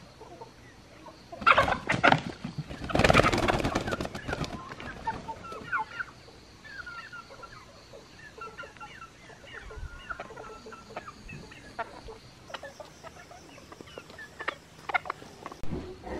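Chicken caught by hand, squawking and flapping its wings in two loud bursts, followed by many short clucks and calls from the flock of chickens around it.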